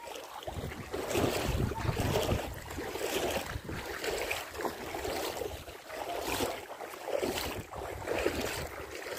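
Shallow seawater sloshing and lapping in uneven surges, with wind rumbling on the microphone.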